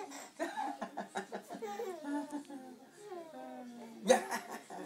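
Baby giggling and babbling, with a man's voice cooing and humming along, and a loud burst of laughter about four seconds in.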